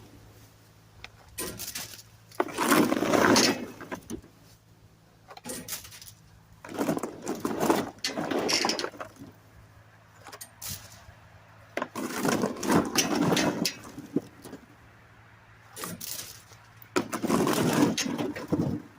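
Dry field corn stalks, leaves and husks rustling and crunching in about seven irregular bursts, the noise of working through a standing corn patch, over a faint steady low hum.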